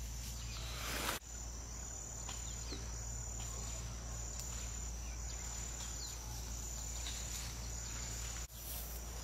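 High-pitched insect trilling, repeated in pulses of under a second each, over a low steady hum. A short burst of noise comes about a second in.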